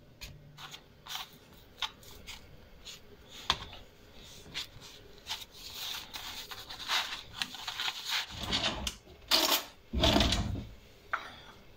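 Kitchen handling noises as flatbread is worked by hand in a pan and on a wooden board: scattered light clicks, taps and rustles, with two louder knocks and scrapes between about eight and ten and a half seconds in.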